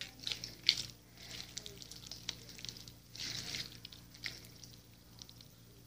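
Crunchy glitter slime being squeezed and kneaded in the hands: a string of sticky crackles, clicks and squelches, with the sharpest pop a little under a second in and a longer crackly squish about three seconds in.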